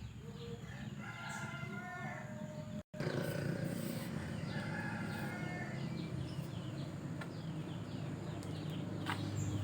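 A rooster crowing twice, each crow about a second long, with small birds chirping and a steady low rumble underneath.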